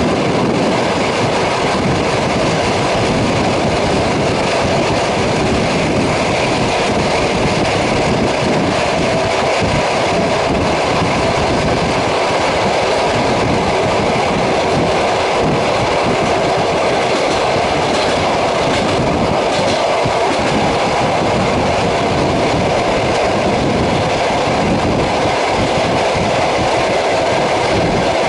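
Passenger train running along the line, heard from on board: a loud, steady rumble of wheels on rail with clatter from the track.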